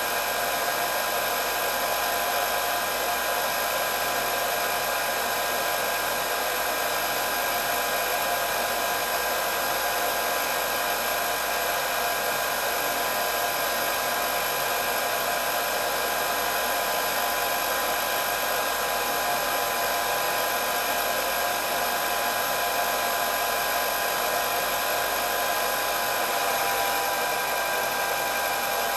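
Electric hair dryer running steadily at constant speed: an even blowing whoosh with a steady high motor whine.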